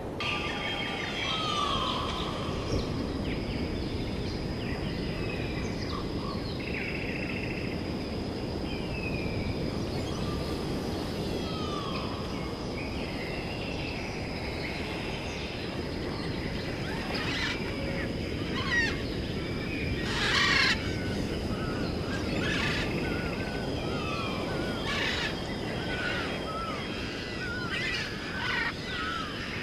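Birds chirping and calling repeatedly, many short downward-gliding notes, over a steady outdoor background hiss and a thin, steady high-pitched tone.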